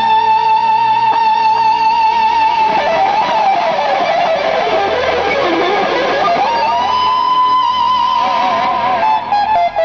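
Electric guitar lead played live through Engl amplifier stacks. A long held note with vibrato dives down in pitch about three seconds in, swoops back up to a held high note, then breaks into quick choppy notes near the end.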